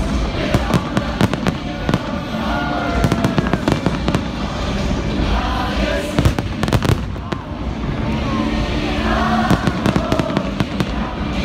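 Aerial fireworks shells bursting in quick, irregular succession, many sharp bangs overlapping.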